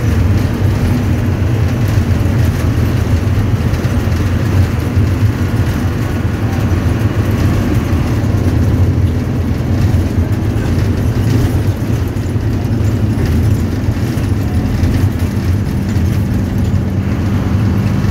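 A bus's engine and road noise heard from inside the driver's cab while it cruises at speed: a steady, loud low drone.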